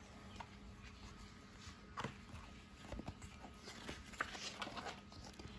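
Faint handling noise of a picture book being opened to its first page: soft paper rustling with a few light taps about two, three and four seconds in.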